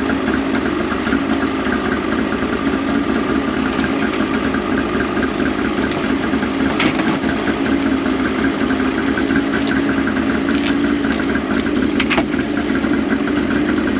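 Old Polaris RMK snowmobile's two-stroke engine idling steadily after a pull-start in the cold, with no revving.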